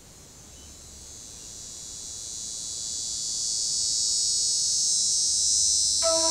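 Steady high-pitched insect chorus in a cypress swamp, swelling steadily louder, with music notes coming in near the end.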